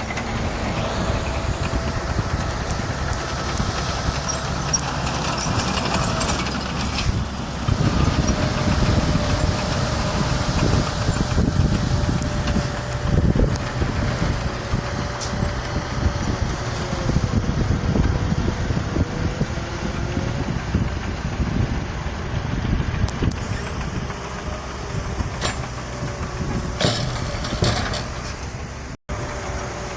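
Heavy diesel earthmoving machinery running steadily, with a faint whining tone that wavers in pitch and a few short knocks. The sound cuts out briefly near the end.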